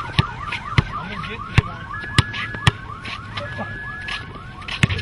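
Car alarm going off, a rising whoop repeating about four times a second, with several sharp clicks or knocks over it.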